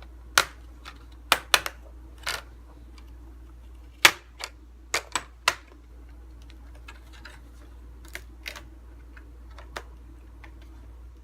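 Plastic snap-in clips of a laptop's screen bezel popping loose one after another as the bezel is pried off along the edge: a string of sharp, irregular clicks, thickest in the first half and sparser toward the end.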